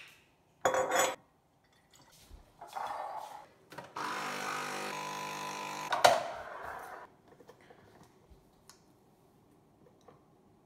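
Capsule coffee machine's pump buzzing steadily for about two seconds as a coffee is made. Around it are clinks and knocks of a glass jar being handled, with a sharp knock just as the buzz stops.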